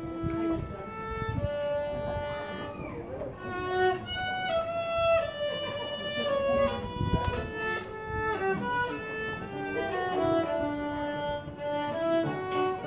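Violin playing a melody of held notes that step from one pitch to the next.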